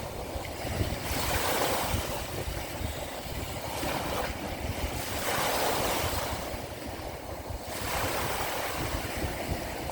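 Small sea waves washing onto the shore, a new wash swelling and fading every two to three seconds over a steady low rumble of surf.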